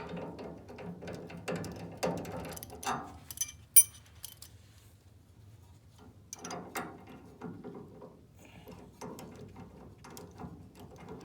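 Hand ratchet wrench clicking in short runs while loosening bolts, with a sharp metal clink a little under four seconds in and a pause before the clicking resumes.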